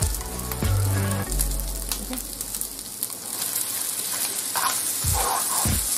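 Rice frying with a steady sizzle in a nonstick frying pan while a wooden spoon stirs a freshly cracked raw egg through it.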